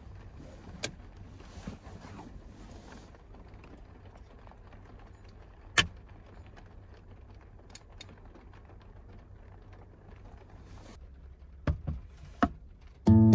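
Quiet handling sounds over a low steady hum: a few sharp metallic clicks as a small metal lantern is hung from a ceiling hook, the loudest about halfway through. Near the end come three quick knocks as a portable induction cooktop is set down on a wooden table, and acoustic guitar music starts right at the end.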